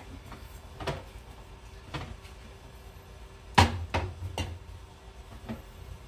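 Glass jars and food containers being set down and shifted on refrigerator shelves: a few separate knocks and clunks, the loudest a little past halfway, followed by two or three lighter ones.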